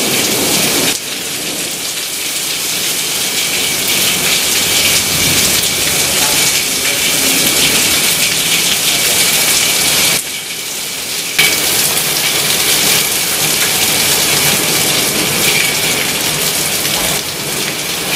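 Heavy thunderstorm downpour: a steady loud hiss of rain pouring down, dipping briefly about a second in and again around ten seconds in.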